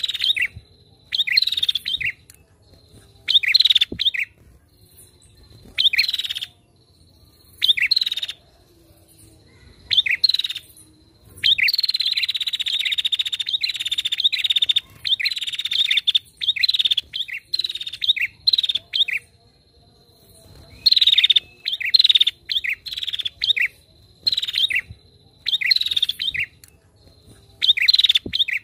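Female prinia (prenjak) calling in bursts of rapid, sharp chattering notes, repeated every second or two, with one longer unbroken run of several seconds near the middle. It is the lure call used to provoke other prenjak into calling.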